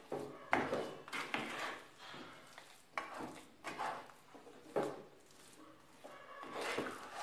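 A spatula stirring and pressing thick rice-flour and gram-flour dough around a steel pan, giving irregular scrapes and knocks about every half second to a second as the dough is cooked through.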